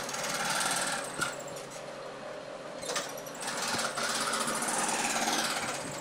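Homemade table-mounted jigsaw, its blade tensioned by an overhead wooden arm, running fast and sawing curves through a wood sheet with a rapid reciprocating chatter. The cutting noise is louder for the first second and again from about four seconds in, easing off in between.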